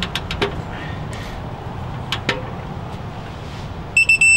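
Sharp ratchet clicks as the caliper bracket bolt is run in. Near the end comes a loud high electronic beep, a couple of short beeps then one steady tone about a second long, typical of a digital torque adapter signalling that the bolt has reached its set torque of 100.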